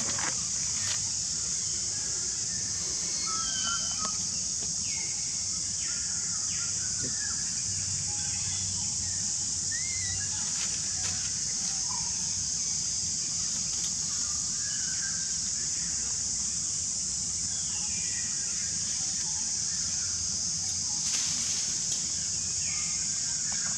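Steady high-pitched insect drone, like a cicada chorus, with scattered short high chirps and squeaks over it.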